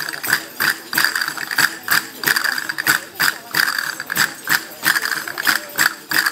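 Castanets clacking with tambourine jingles in a steady dance rhythm, about three strokes a second.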